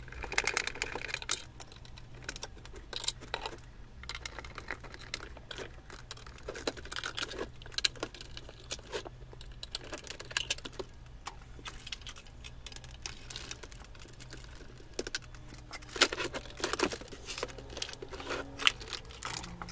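Irregular clicks, knocks and scraping as the chipboard cabinet of a table radio is taken apart by hand with a screwdriver, its top panel lifted off and the chassis freed from the case. The handling is busiest near the end.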